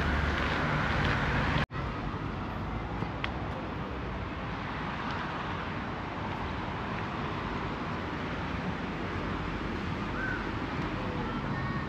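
Steady outdoor city ambience: an even background hum of distant road traffic, with a brief dropout about two seconds in.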